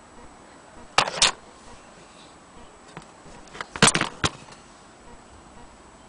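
Two short bursts of clicking and rattling, about a second in and again about four seconds in: handling noise of the antique Willcox & Gibbs sewing machine's metal parts.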